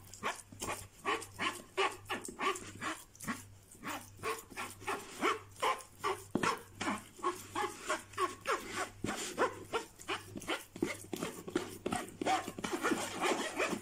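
A metal spoon scraping and pressing ricotta through a plastic mesh sieve in quick, regular strokes, about three a second, each stroke a short scrape with a squeaky edge.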